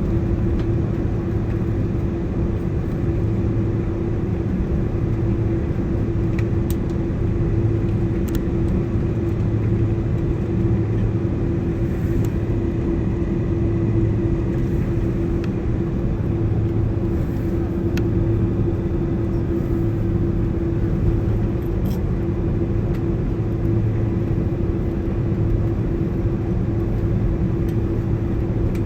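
Steady airliner cabin noise with the jet engines running: an even rumble with a constant low hum that neither builds nor fades.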